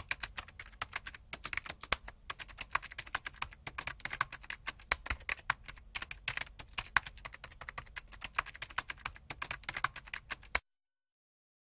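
Rapid, uneven key clicks of typing, used as a sound effect for text being typed on screen; the clicking cuts off suddenly near the end.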